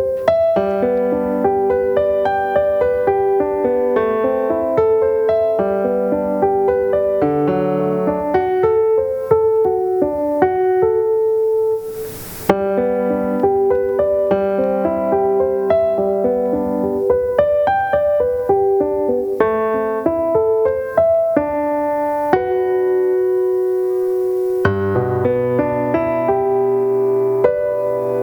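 Solo piano playing a melody over lower accompanying notes, with a brief break and a click about twelve seconds in.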